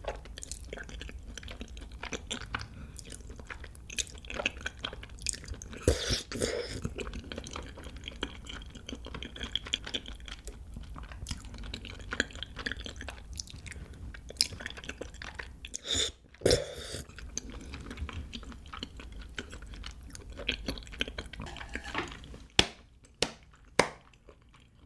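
Close-miked eating sounds: wide, chewy Chinese glass noodles in rosé tteokbokki sauce are slurped up and chewed, with wet mouth clicks throughout. Near the end there are a few sharp separate clicks.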